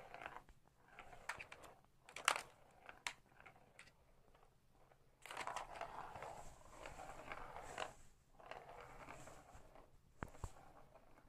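Light-up ball of a Catit Senses Super Roller Circuit rolling through the plastic tube track, a light rumbling rattle in stretches, with scattered sharp plastic clicks and knocks as a cat bats at the track.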